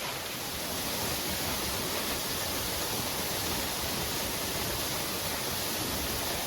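Steady rushing of a waterfall pouring into its pool, an even wash of water noise.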